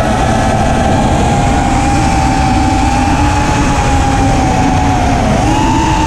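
FPV racing quadcopter's brushless motors whining steadily over heavy rushing wind and prop noise. The whine dips a little about five seconds in, then jumps higher.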